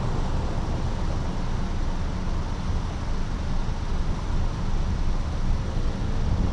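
Steady low rumble of road traffic, with cars and a pickup truck idling while stopped.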